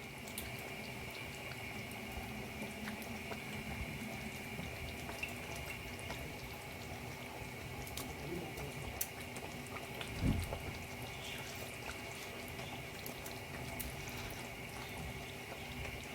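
Pot of egusi soup simmering, a steady bubbling hiss with scattered small pops under a constant kitchen hum; a single dull knock about ten seconds in.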